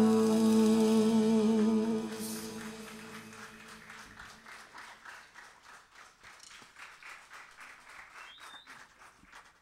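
The band's last chord rings out and fades away over about three seconds. Light scattered applause from a small audience follows.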